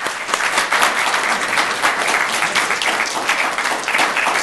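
Audience applauding: dense, many-handed clapping.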